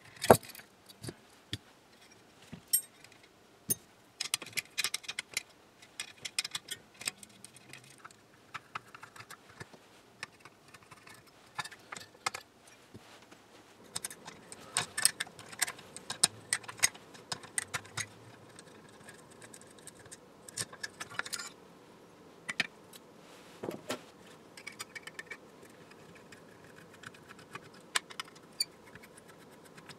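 Small metal screws, nuts and parts of an antique radio's tube sockets and wire chassis clicking and rattling as they are unscrewed and handled with a screwdriver. The clicks come in scattered clusters with quieter gaps between.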